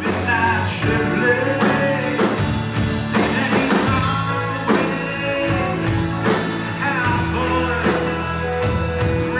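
Live country band playing with drums, electric and acoustic guitars and bass, a man singing over a steady drum beat.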